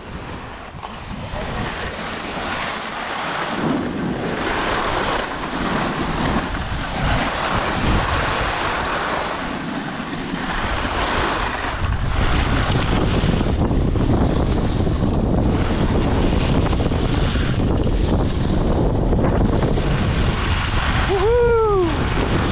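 Wind buffeting an action camera's microphone during a fast ski run, over the hiss and scrape of skis on an icy, hard-packed piste. The low wind rumble grows heavier about halfway through. Near the end there is a brief pitched cry that rises and then falls.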